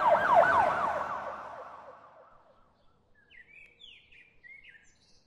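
An emergency vehicle siren in a fast yelp, its pitch rising and falling several times a second, fading away over the first two seconds. A few short bird chirps follow near the end.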